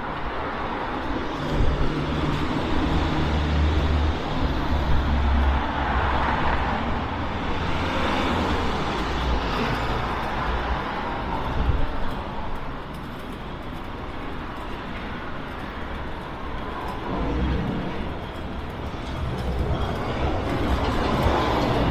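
Road traffic: the low rumble of vehicle engines with steady tyre and street noise, the rumble strongest in the first half.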